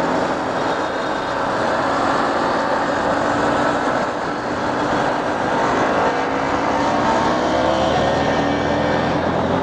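Honda X-Blade's single-cylinder engine running under way, with wind and road noise, its pitch slowly rising as the bike speeds up in the second half.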